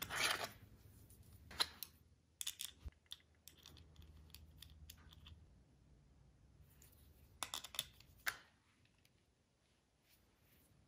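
Hands handling and fitting a small tachometer gauge onto its metal mounting bracket with a ratchet and socket: scattered clicks, taps and rustles of the parts, with a few quick clicks together about seven and a half seconds in.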